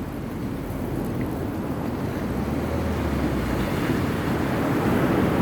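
Steady seaside wind and surf noise, a low rumbling haze with the wind buffeting the microphone, slowly growing louder.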